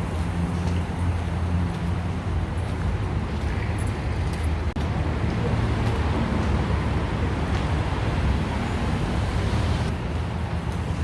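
Steady rumble of road traffic with an even hiss of city noise.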